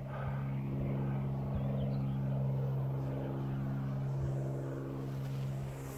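Large 3D-printed RC Spitfire model's electric motor and propeller running at a steady cruise throttle, a constant-pitch buzz with no change in speed.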